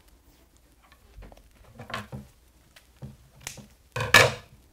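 Electrical tape being peeled off its roll in a few short pulls, then scissors cutting a piece off about four seconds in; the cut is the loudest sound.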